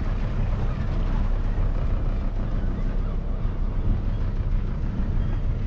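A boat's engine running with a steady low hum under rushing wind noise on the microphone.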